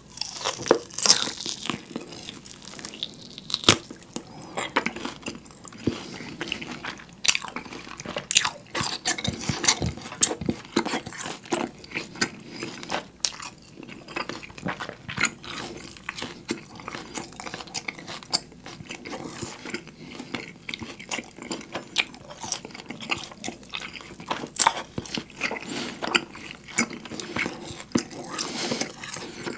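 Close-miked chewing of a big piece of seared beef steak: a steady run of wet mouth noises and sharp clicks from lips and teeth, with bites into the meat.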